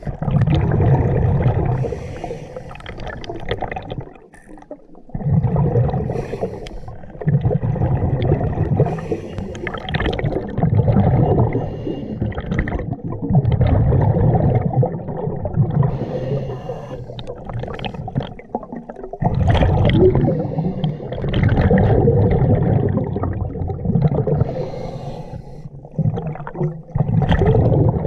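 Scuba diver breathing underwater through a regulator: the exhaled bubbles rumble and gurgle past the camera in long bursts every few seconds, with quieter breaks for each inhale between them.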